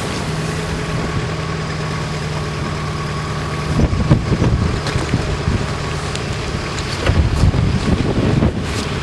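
Wind buffeting the microphone over a steady low hum, with stronger gusts about four seconds in and again near the end.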